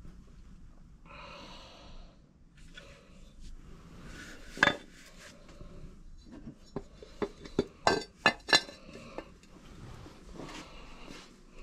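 Porcelain village houses being picked up and handled: one sharp knock about halfway through, then a quick run of several clinks and knocks a few seconds later as the ceramic pieces touch other things.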